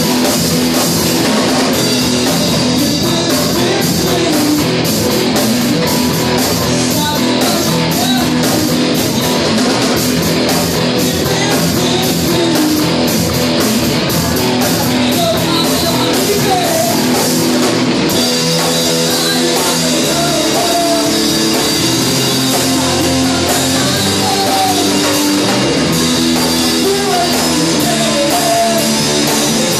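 Loud rock band playing, with electric guitar, drum kit and singing. The music shifts to a new section about eighteen seconds in.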